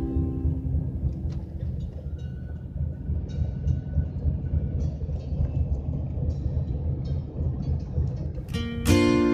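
Road noise heard from inside a moving car: a low rumble of tyres and engine, with scattered light clicks and taps. Guitar music comes back in near the end.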